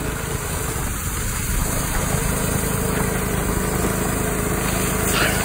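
A small engine running steadily with an even hum.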